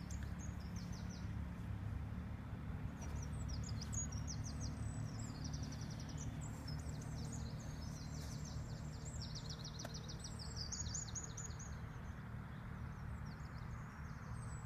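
Small songbirds singing: bursts of quick, high chirps and trills, thickest in the middle, over a steady low rumble.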